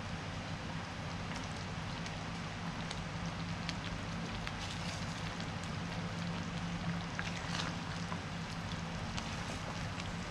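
Fish curry simmering in a frying pan on a gas burner: a steady hiss with scattered small pops and crackles, over a low steady hum.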